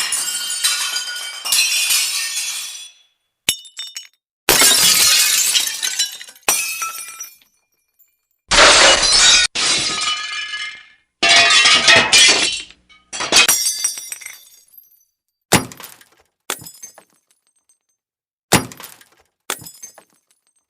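Glass breaking again and again: about a dozen separate smashes, each a sudden crash followed by tinkling shards, with short silences between. The first half holds several long crashes with ringing tails; later ones are shorter and sharper.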